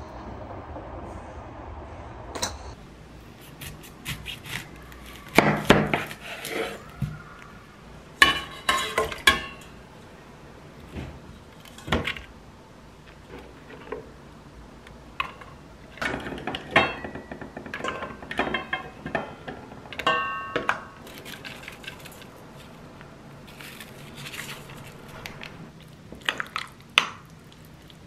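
A stainless steel stockpot and kitchen utensils clanking and clinking as ingredients are put into the pot. Several sharp metal clanks ring briefly, the loudest around the middle of the stretch.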